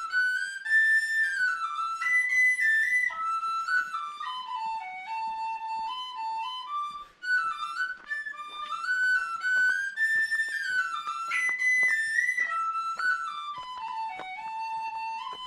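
Background music: a solo flute playing a slow melody that steps up and down, the same phrase heard twice.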